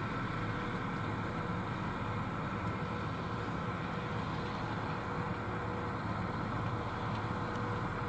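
New Holland TR99 combine running steadily under load while harvesting soybeans: a constant machine drone with a low hum and a thin steady whine above it.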